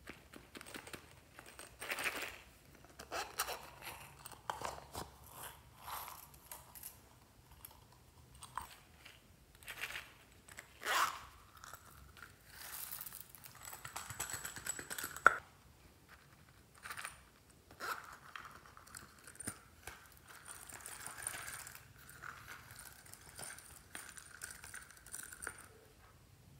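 Close-up rustling, clicking and tapping of small plastic and silicone containers being handled, and sequins and beads being shaken out of them onto slime in a glass dish. A sharp click about fifteen seconds in is the loudest sound.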